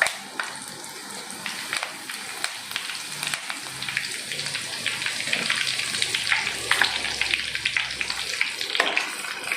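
Curry leaves and slit green chillies frying in very hot oil, sizzling and crackling with many sharp pops, busier and louder from about three seconds in.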